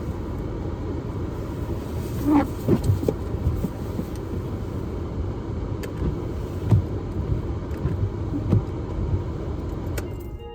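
Car engine idling, heard inside the cabin as a steady low rumble with scattered light knocks; the rumble falls away near the end.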